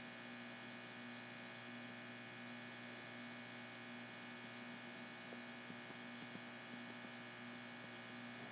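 Faint steady electrical hum: one low tone with a buzzy stack of overtones above it, unchanging throughout.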